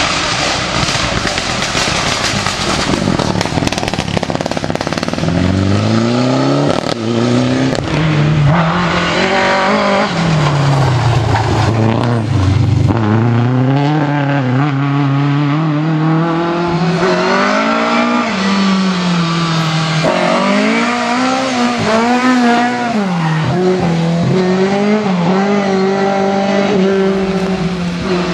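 Rally car engine at full throttle, its pitch climbing and dropping again and again as the driver shifts gears and lifts off. The first few seconds are a loud noisy rush.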